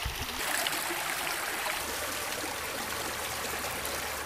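Shallow stream running over rocks: a steady rush of flowing water that grows brighter about half a second in.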